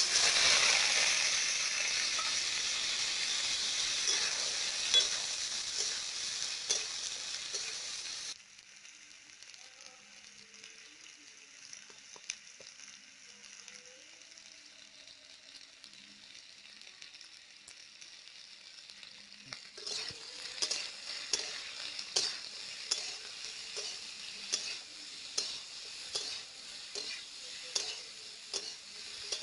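Sliced potato and brinjal hit hot oil in a metal kadai and sizzle loudly at once. About 8 seconds in this drops to a quieter frying, and from about 20 seconds a metal spatula scrapes and stirs the vegetables in the pan in regular strokes.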